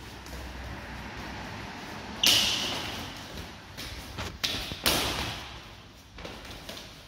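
Arms, hands and sleeves of two people swishing and slapping against each other in Wing Chun chi sao sparring. A loud sharp hit comes about two seconds in, then a quick run of smaller hits and swishes around the five-second mark.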